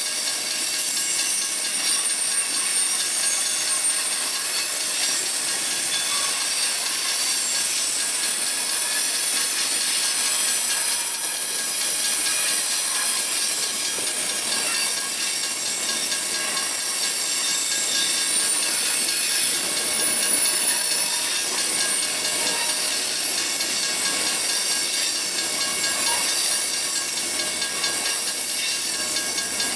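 Covered hopper cars of a freight train rolling past: a steady high-pitched rush of steel wheels on rail, with thin squealing tones over it.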